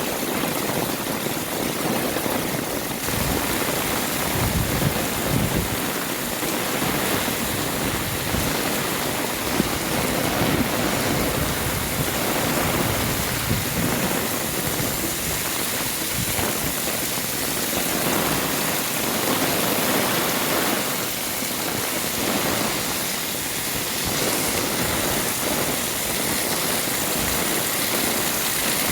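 Heavy rain falling steadily, a dense even hiss of drops on surfaces, with some irregular low rumbling underneath.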